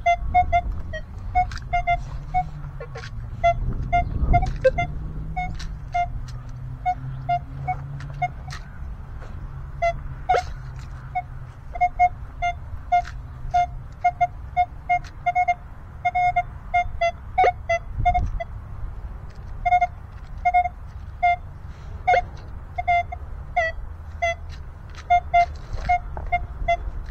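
Minelab Equinox 900 metal detector giving short, irregular beeps at one pitch, several a second, as the coil sweeps ground full of small metal trash. Scattered sharp clicks and a low rumble run underneath.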